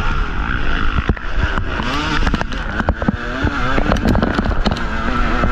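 2023 Yamaha YZ250 two-stroke dirt bike engine revving up and down as it is ridden hard along a rough trail, its pitch rising and falling with the throttle. Sharp knocks and clatters from the bike hitting bumps come through again and again over a steady low rumble.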